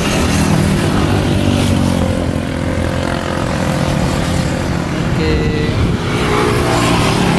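Motorbike engines passing on the road close by, a continuous low engine drone.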